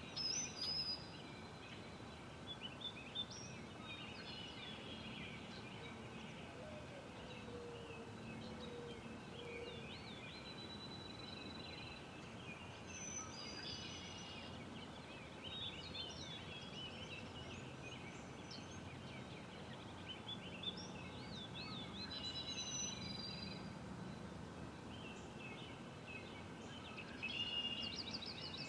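Several songbirds singing and chirping in short overlapping phrases and trills over a steady background hiss, with louder bursts about a second in and near the end.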